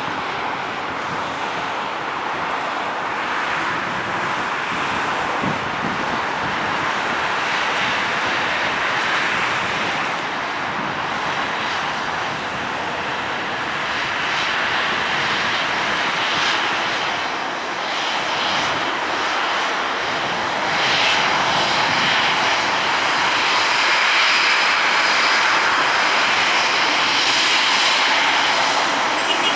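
Boeing 737-800 airliner's CFM56 jet engines running as it comes in to land, a steady rushing noise with a faint high whine that grows louder over the second half.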